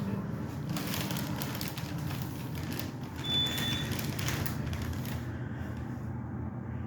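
Low steady hum with rustling, crackling noise inside an elevator car, easing off after about five seconds. A short high-pitched ring of the alarm bell sounds a little past three seconds in.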